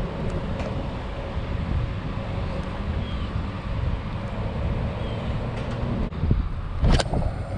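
Wind buffeting the microphone, a steady low rumble, with one sharp click about seven seconds in.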